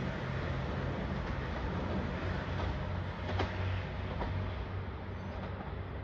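Distant JR Shikoku 2700 series diesel railcar running away along the line, a steady low rumble with a couple of faint wheel clicks, fading slightly toward the end.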